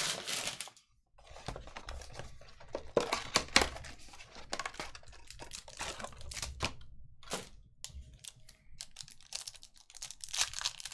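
Trading card box and plastic pack wrapper being opened by hand: crinkling, tearing and rustling as the cards are pulled out and handled, in quick irregular bursts with sharp clicks.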